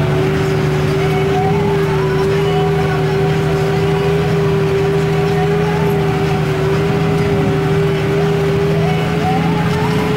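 New Holland TM120 tractor's diesel engine running steadily under plowing load, heard from inside the cab, with a steady whine over the engine's drone.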